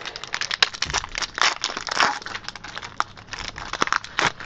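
Foil wrapper of a Pokémon trading card booster pack being torn open and crinkled by hand, a dense run of crackles and rustles.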